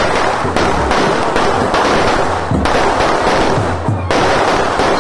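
Fireworks on a tall frame spraying sparks: a loud, continuous hissing crackle broken every second or so by sharp cracks and bangs.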